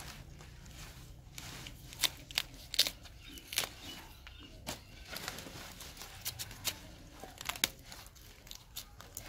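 Knife cutting through fresh cauliflower stalks and leaves being snapped and torn off: a string of irregular crisp snaps and cracks with leafy rustling between them, the loudest a few seconds in.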